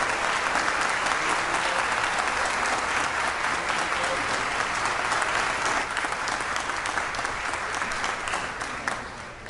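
Audience applauding, many hands clapping together; the applause fades out near the end.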